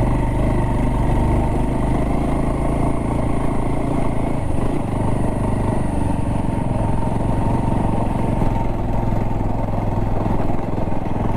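Bajaj Avenger 220 Cruise motorcycle's single-cylinder engine running steadily at an even throttle while being ridden.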